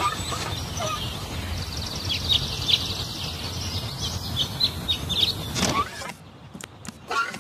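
Outdoor ambience: small birds chirping in quick runs over a steady low background rumble. About six seconds in, it drops away to a much quieter room.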